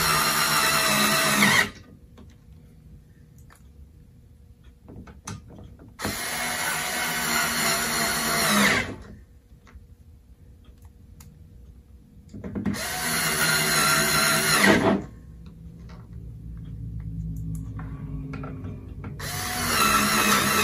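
Electric screwdriver running in four separate bursts of about two to three seconds each, a steady motor whine, driving the four housing screws back in. Faint handling sounds fall in the gaps.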